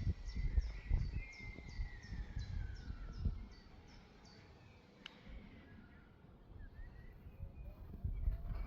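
Ergatec EWS4 electronic siren ending one tone of its fire-alarm test signal: a steady high tone that glides down in pitch and fades out within the first three seconds. Wind buffets the microphone throughout. A few bird calls follow in the pause.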